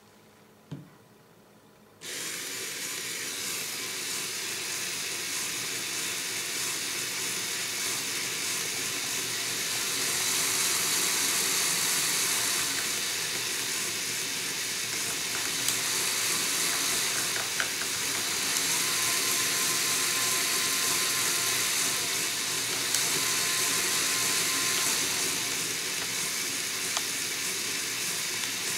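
A click, then about two seconds in two LEGO Power Functions XL motors start up and drive a LEGO Technic differential: a steady whir of motors and plastic gears, louder for a while in the middle. It is running under the full power of both motors, the load that tends to break the stock differential's thin 12-tooth gear.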